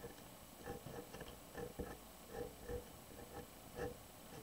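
Black felt-tip marker pen drawn over watercolour paper in short strokes, a series of faint short scratches and taps, a few each second.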